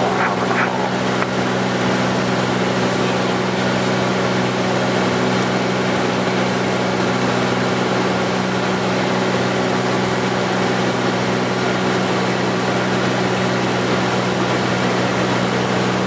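Cessna 210's six-cylinder piston engine and propeller droning steadily, heard from inside the cockpit on final approach, over a wash of cabin and airflow noise.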